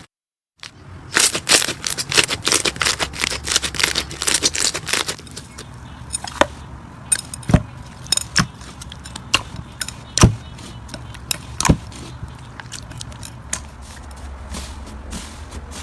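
Slime being squeezed and pressed by hands, after a brief silent gap at the start: a dense run of crackling clicks for about four seconds, then slower, scattered pops and snaps, a few of them deeper.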